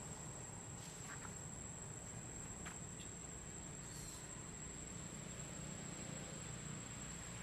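Faint outdoor ambience: a steady high-pitched insect drone over low hiss, with a few faint short chirps about one, three and four seconds in.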